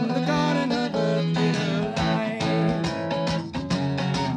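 Band music led by a strummed acoustic guitar, with a second guitar playing along in steady rhythm.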